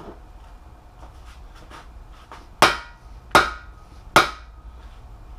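Three mallet blows, a little under a second apart, on the end of a long steel driver bar, driving a balance shaft bearing into its bore in a 3.7L V6 engine block. Each strike rings briefly, and a few faint taps come before them. The bearing is still being driven home, not yet seated.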